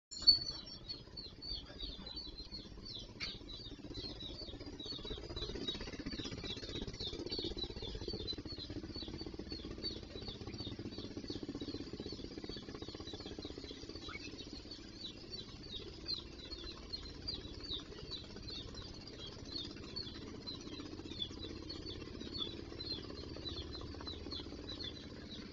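A small animal chirps over and over, several short, high, falling chirps a second, over a faint low hum. A single sharp sound comes right at the start.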